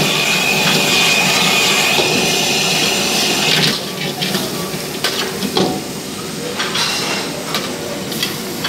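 Restaurant gas wok burner running with a loud hiss and a steady high whine over the frying food, cutting off abruptly about three and a half seconds in as the flame is turned down. After that, a metal ladle scrapes and clinks against the wok as the stir-fry is tossed.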